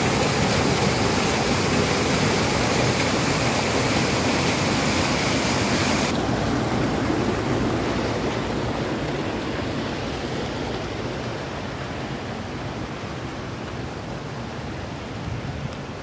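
River water rushing over rocks, a steady loud rush. About six seconds in the hiss abruptly turns duller, and the rush then slowly grows quieter.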